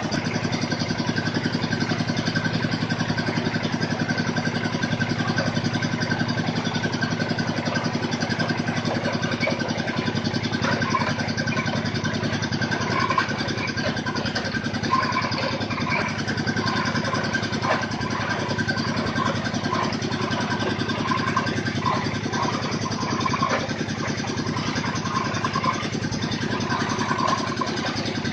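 Engine of a water-well drilling machine running steadily with a fast, even pulse. From about ten seconds in, short higher-pitched squeaks or clinks come and go over it.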